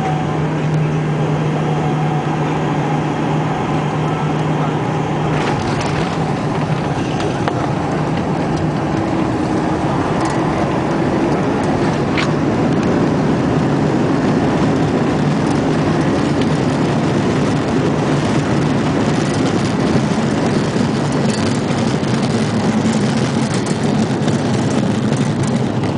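Airbus A300 cabin noise on the runway: the jet engines' drone and the rush of air and wheels, heard from inside the cabin, growing a little louder about halfway through.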